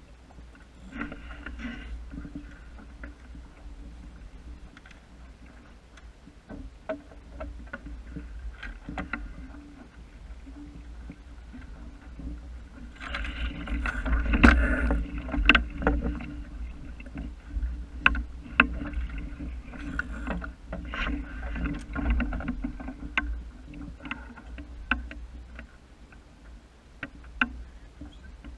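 Small wooden sailing dinghy under way: water moving along the hull over a steady low rumble, with scattered clicks and knocks from gear and a person shifting about in the boat. A louder stretch of noise and knocking comes about halfway through.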